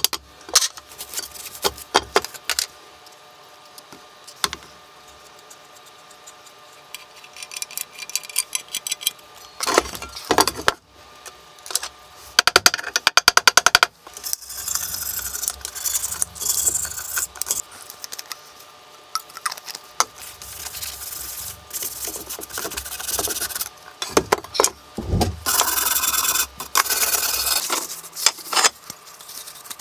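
Hand work on cast-iron bench drill parts: metal clinks and taps, a quick run of rapid taps about halfway through, then stretches of rubbing and scrubbing on the metal.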